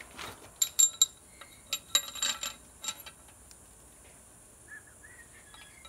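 Steel cylinder head bolts clinking against each other and the head as they are taken from a plastic bag of oiled bolts and set in their holes: a scatter of sharp, ringing metallic clinks over the first three seconds, then quieter.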